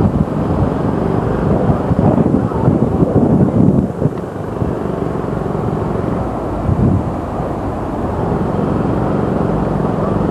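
Steady rushing and splashing of water running down water-park slides into the splash pool, heard as an even noise with a low rumble and louder surges about two to four seconds in.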